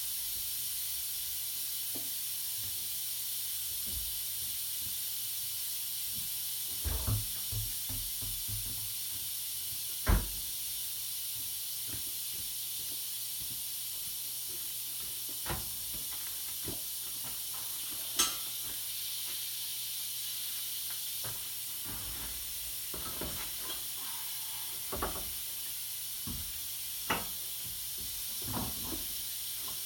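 Steady hiss with scattered knocks and clinks from hand work on a truck wheel. The two sharpest knocks come about ten and eighteen seconds in.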